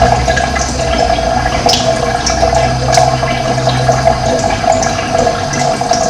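Running water gurgling and bubbling steadily, with a few short high chirps of birds. A low rumble under it stops about four seconds in.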